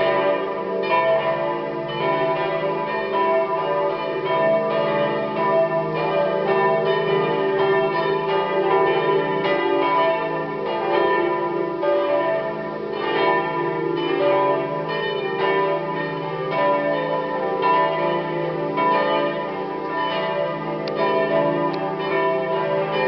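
The church bells of St. Margaretha ringing together in a full peal, many strikes overlapping at uneven spacing so their tones blend and hang on. The peal is the call to the Saturday evening vigil mass.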